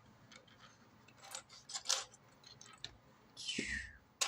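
Loose plastic Lego pieces clicking and clattering as a hand sorts through them, a few separate clicks, then a brief rustling swish with a soft thump near the end.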